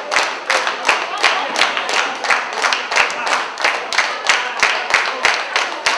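Wrestling crowd clapping in unison in a steady rhythm, about three claps a second, with voices shouting over it.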